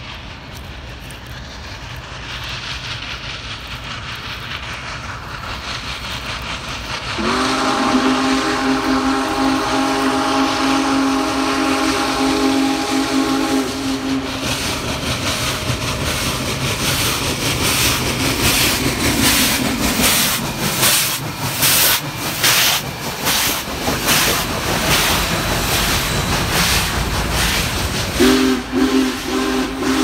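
Union Pacific 4014 Big Boy steam locomotive's chime whistle, blown in one long chord about seven seconds in and held for about seven seconds, echoing back as it fades. Then the locomotive's exhaust beats and rail noise grow loud as it passes close, and the whistle sounds again near the end.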